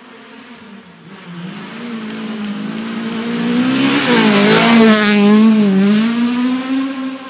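Small hatchback rally car approaching and passing at speed on a special stage. The engine grows louder from about a second in and is loudest around four to six seconds in, its pitch dipping and rising as it goes by, then fades away.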